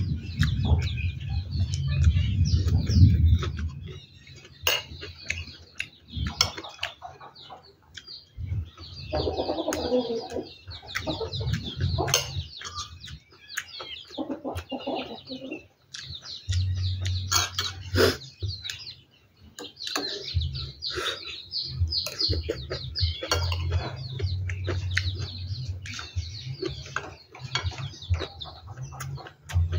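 Birds chirping and chickens clucking around an open-air table, mixed with close-up eating sounds: chewing and the sharp clicks of a spoon against a plate.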